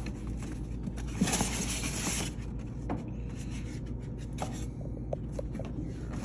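Cardboard box being handled on a counter: a longer scraping rush of cardboard about a second in, then a few light knocks and rustles. A steady low hum lies underneath.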